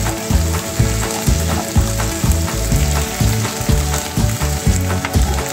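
Small silver fish shallow-frying in hot oil in a pan, a steady sizzle dotted with little crackles and pops. Background music with a steady low beat plays over it.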